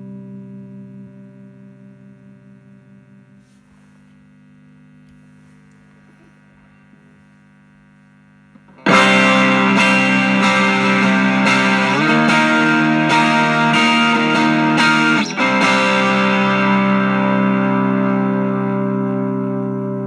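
Electric guitar, a Fender Stratocaster, played through an engaged Hermida Audio Zendrive Dumble-style overdrive pedal. A held chord dies away over the first few seconds, then about nine seconds in a loud overdriven chord is struck and strummed several times before being left to ring and slowly fade.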